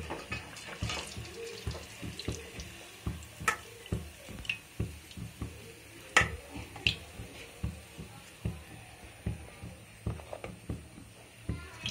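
Potato chops frying in hot oil in a kadai: a steady sizzle, with a few sharp metal clinks of a slotted spoon against the pan a few seconds in and just past the middle. Under it runs a low regular thudding about twice a second.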